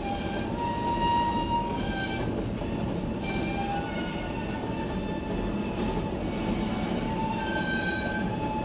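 Freight train of covered hopper cars rolling past: a steady rumble of wheels on rail, with high-pitched wheel squeal that comes and goes.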